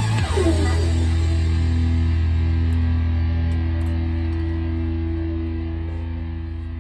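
Electric guitar, a 2008 Ibanez RG370DXL played through a Positive Grid Spark 40 amp, over a backing track. A bent lead phrase ends about half a second in, then the final chord is held and slowly fades out.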